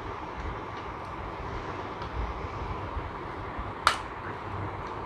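Plastic parts of a toy Ferris wheel handled and fitted together, with faint clicks and one sharp plastic click about four seconds in as the wheel snaps onto its base. A steady low background hum runs underneath.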